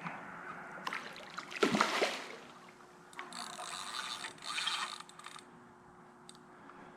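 Fishing reel being cranked, its gears clicking in runs, with a louder burst of handling noise about one and a half seconds in.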